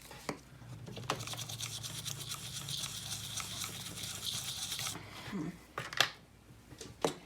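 Toothbrush scrubbing rapidly against a hard surface for about four seconds, then a few sharp clicks.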